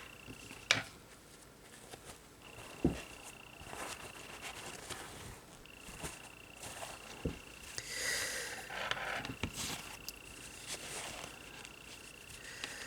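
Quiet handling sounds of nail-art stamping: a few light knocks, and a short scraping sweep about eight seconds in, as a scraper is drawn across a stamping plate.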